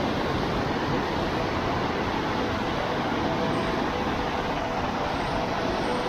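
Gooseberry River whitewater rushing over basalt ledges below the falls: a steady, even rush of fast water.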